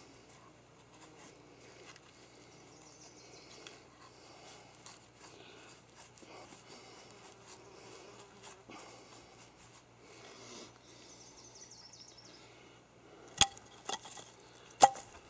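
Terava Skrama heavy knife shaving curls from a wooden stick, a faint scraping of blade on wood with small ticks. Near the end come two sharp, loud knocks about a second and a half apart, with a smaller one between them.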